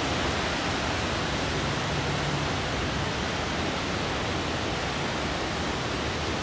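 Steady, even noise hiss with no distinct events.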